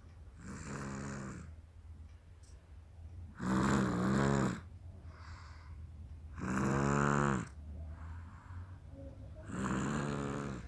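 A young girl snoring in deep sleep: four drawn-out snores about three seconds apart, each lasting about a second, with fainter breaths between them.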